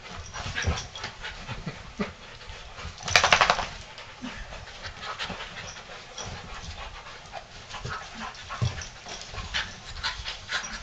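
A pit bull mix and a beagle mix puppy play-wrestling: panting, with paws and bodies scuffling on a dog bed and carpet. A short, loud burst of noise about three seconds in.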